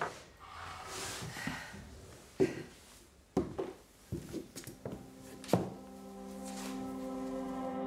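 A few scattered soft knocks and rustles, then film-score music with long held notes comes in about six seconds in.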